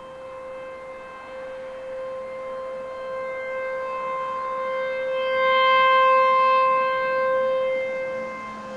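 American Signal T-128 battery-backed outdoor warning siren sounding a single steady tone. Its pitch holds level while the volume swells to a peak about six seconds in and then eases off, as the rotating head sweeps toward and away from the listener.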